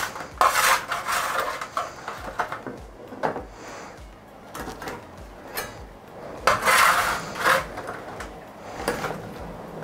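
Metal spatula scraping and clinking in a metal baking tray of oven-roasted potato wedges, then a knife cutting a crisp wedge; the loudest scrapes come about half a second in and again around seven seconds in.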